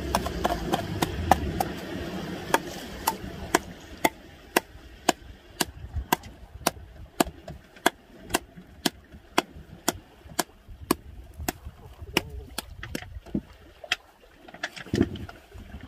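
A landed tuna beating its tail against the floor of a fibreglass boat: sharp, regular knocks about twice a second that keep going throughout.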